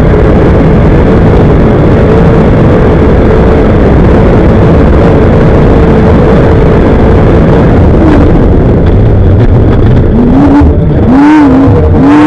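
Class 1 off-road desert race car's engine running hard and loud at a steady pitch, then, in the last two seconds, rising and falling in quick repeated revs.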